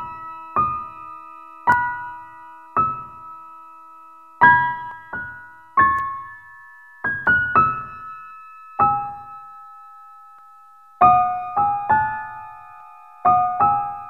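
Slow, sparse background piano music: single notes and small chords struck about once a second, each left to ring and fade, with a short pause in the middle.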